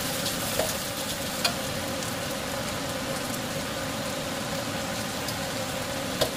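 An egg frying in hot oil in a wok, a steady sizzle, with a few light clicks of a metal spatula against the wok, the sharpest near the end.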